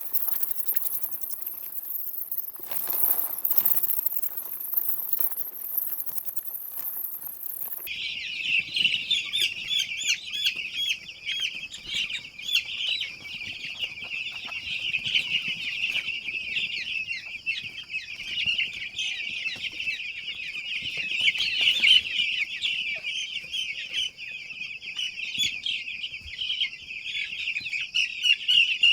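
A flock of young broiler chicks peeping continuously, dozens of short high cheeps overlapping, starting abruptly about eight seconds in. Before that there is only a steady high hiss.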